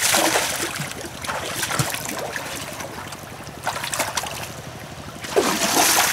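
Splashing as a person wades and plunges their hands through shallow, muddy pond water, in several uneven bursts, over a steady background of trickling water.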